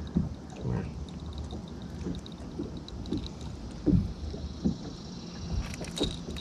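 Small waves slapping irregularly against a bass boat's hull, with faint metallic clicks of pliers working a lure's hooks out of a hooked bass.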